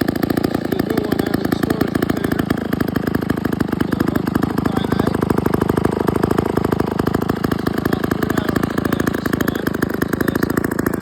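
Vintage 1948 McCulloch two-man chainsaw's two-stroke engine running steadily, with a rapid, even firing beat.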